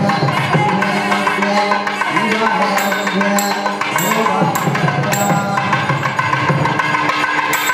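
Devotional music: drumming under a held melody that slides up and down in pitch.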